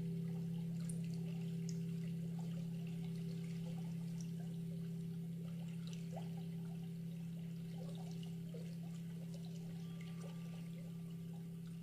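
Low tone of a large meditation bell ringing on and slowly fading, with faint trickling water behind it.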